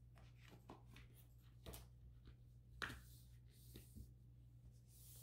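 Faint handling of a cardboard mat and a picture frame: a few light taps and paper rustles, the sharpest about three seconds in, over a steady low room hum.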